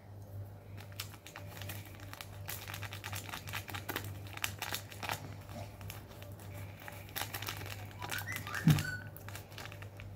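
Small foil sachet crinkling and crackling as it is handled and torn open, in a quick run of small crackles. A brief sound of a voice comes near the end.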